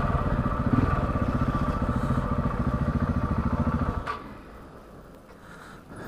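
KTM 690 Enduro's single-cylinder engine running with an even, rapid pulse, then switched off about four seconds in, the sound stopping abruptly. A few faint clicks and rustles follow.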